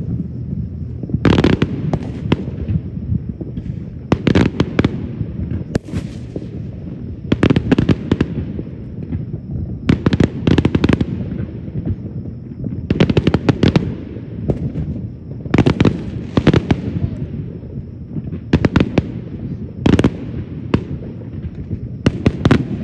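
Aerial fireworks shells bursting one after another: a sharp bang or a quick run of bangs every two to three seconds, with a low rumble carrying on between them.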